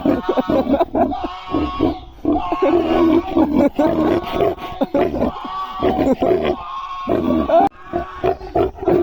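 Pigs grunting and squealing in short, repeated pitched calls.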